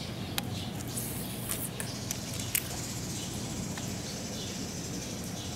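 Outdoor ambience: a high, steady insect buzz comes in about two seconds in, with a few sharp clicks early on and birds chirping.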